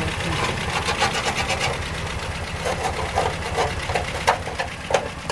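Fiat 125p 1300's four-cylinder engine idling with a fast, even ticking rhythm, and a few sharp knocks in the second half.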